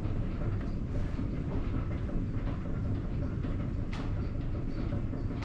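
Water-powered mill machinery running: a steady low rattle hum from the belt drives and line-shaft wheels, with one sharp click about four seconds in.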